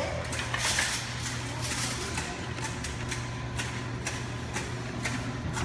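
Claw machine and arcade noise: a steady low machine hum with frequent light clicks and knocks throughout.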